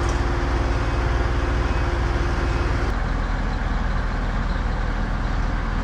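Engine of heavy construction machinery running steadily, a low pulsing rumble, with a steadier higher hum over it that cuts off about three seconds in.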